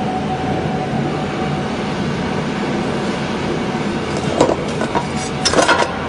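Cable cut-and-strip machine running with a steady hum and a faint steady whine. A clatter comes about four seconds in, and a burst of rattling clicks near the end.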